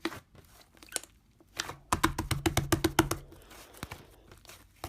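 Hands working slime, giving small sticky clicks and crackling pops, with a quick run of rapid clicks in the middle.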